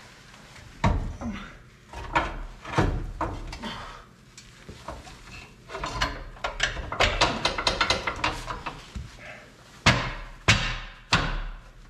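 Sharp metal clanks and knocks of parts and tools being handled under a truck, with a quick run of clicks about midway.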